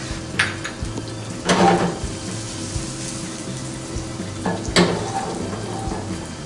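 Chopped onion and garlic sizzling in olive oil in a stainless frying pan on a gas hob. A few short, louder bursts of clatter and sizzle come as the pan is handled and shaken, the biggest about a second and a half in and again just before five seconds.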